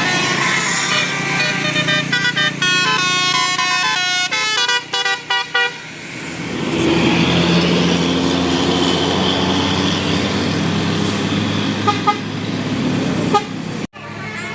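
A tour bus's Basuri telolet musical horn playing a quick run of stepped notes, followed by the bus's engine running loudly and steadily.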